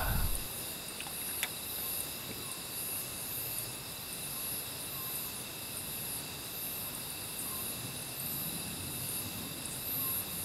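Night insects, crickets among them, chirping in a steady high-pitched chorus over a faint hiss.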